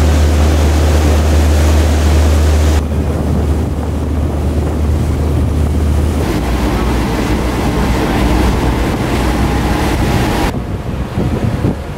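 Chris Craft 360 Commander cabin cruiser under way at speed: wake water churning and rushing behind the stern over a low engine drone, with wind buffeting the microphone. The sound shifts abruptly about three seconds in, where the drone weakens, and again near the end.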